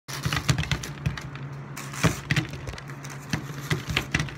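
Fried chicken nuggets being dropped by hand onto a tabletop: about a dozen irregular soft knocks as they land one or a few at a time. A low steady hum runs underneath.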